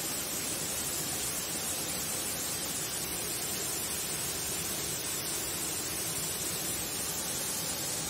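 Waterfall pouring down a rock face into a pool: a steady, even hiss of falling water that does not change.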